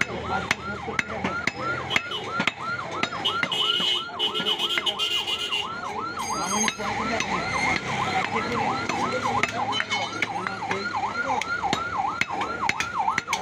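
A fast yelping siren, about three rises and falls a second, keeps going throughout. Over it come sharp knocks and taps of a butcher's knife on a wooden chopping block.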